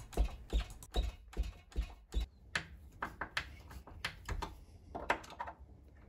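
Screwdriver turning the retaining screws through a door night-latch's mounting plate into the lock cylinder: small metal clicks and taps, evenly spaced about two or three a second for the first two seconds, then more scattered.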